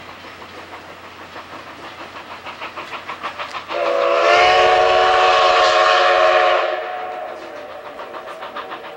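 Steam locomotive pulling away with its exhaust beating about four times a second, building as it gets going. About four seconds in, its steam whistle sounds one long, loud blast of about three seconds over a hiss of steam, and then the exhaust beats go on.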